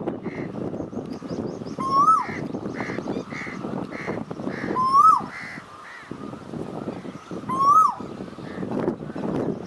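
Asian koel calling three times, a couple of seconds apart. Each call is a clear note that rises and then drops away sharply. A steady low background noise and faint high chirps of other small birds run underneath.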